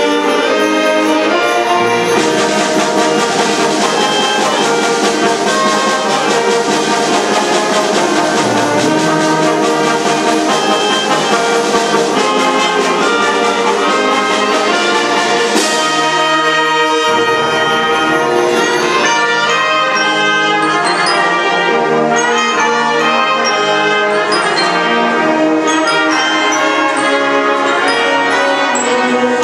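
A concert wind band playing loudly, with brass prominent over the full ensemble, and a cymbal crash a little past halfway.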